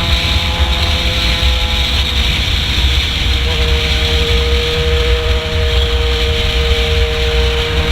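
Yamaha XJ6 inline-four motorcycle engine running through a 4-into-1 exhaust, a loud steady rumble at an even engine speed with a slight change in pitch about three and a half seconds in.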